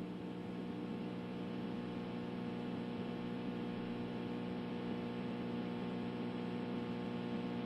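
Steady low electrical hum with a faint hiss: the dead air of a weather radio broadcast, with no alarm tone or voice.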